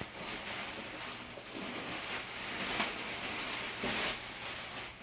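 Packing material rustling and scraping as it is pulled away from a boxed PC case: a continuous rustle with a couple of louder scrapes about three and four seconds in.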